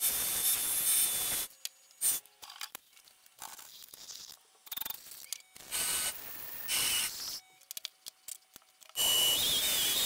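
Workshop sounds in quick succession: a loud hiss at the start, then a drill spinning a buffing wheel with a metal crank arm pressed against it, scraping and rubbing. About nine seconds in, a drill spins a wooden knob against sandpaper: a loud rasp with a whine from the drill motor.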